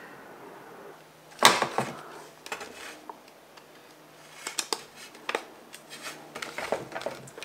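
Plastic Crud RoadRacer Mk3 mudguard parts being handled as the duckbill extension is pressed onto the front mudguard. A short louder clatter comes about a second and a half in, then a string of small clicks and taps.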